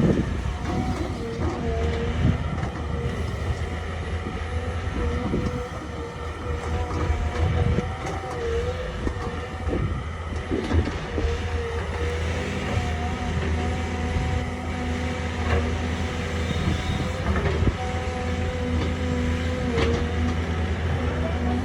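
Hydraulic excavator at work: its diesel engine running steadily, with a wavering hydraulic whine and scattered knocks and clanks. The engine note grows fuller about halfway through, as if under more load.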